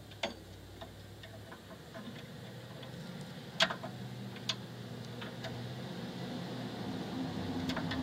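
Metal tool clicking and scraping against a drum parking-brake shoe spring inside the rear rotor hat while the spring is being worked loose: scattered sharp metallic clicks, the loudest about three and a half seconds in. A low hum builds slowly underneath.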